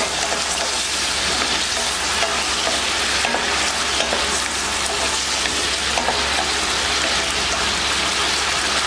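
Mutton liver pieces sizzling in hot oil and water in a metal pan, stirred with a wooden spatula: a steady frying hiss.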